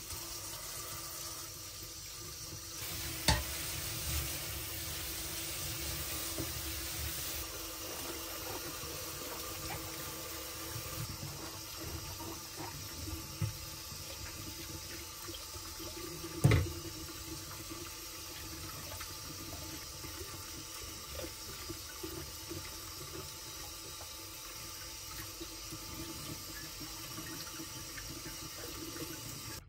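Tap water running steadily into a sink, with a few knocks against the basin; the loudest come about 3 seconds in and about 16 seconds in.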